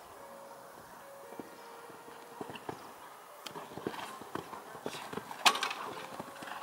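Hoofbeats of a horse cantering on a sand arena, irregular thuds that come closer and more often after about three and a half seconds, with one sharp, loud knock about five and a half seconds in.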